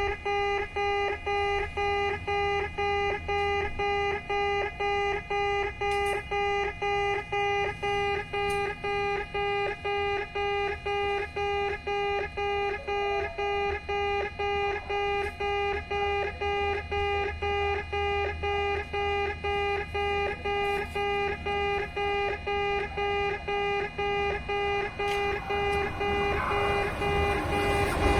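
Railway level crossing alarm of the old electronic "pee-pee" type, a station's in-station crossing, sounding a steady beep that repeats about twice a second. Near the end the noise of an approaching train builds under it.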